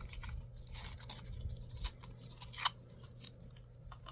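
Small clicks and scraping of a lipstick case and its packaging being handled and opened, with two sharper clicks in the second half.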